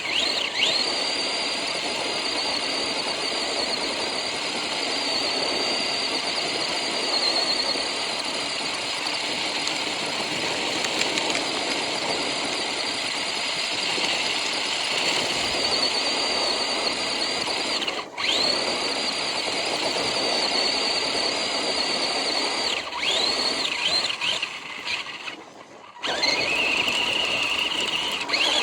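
RC car's motor and gears whining at a high pitch as it is driven, the pitch rising and falling with the throttle. The whine cuts out briefly twice, once past the middle and once near the end.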